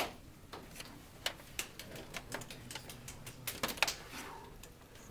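Irregular small clicks and knocks of hands handling parts and cables inside an open desktop computer case, with a quick run of clicks a little past halfway through.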